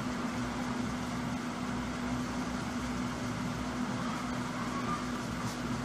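Steady machine hum: a constant low tone over an even hiss, unchanging throughout.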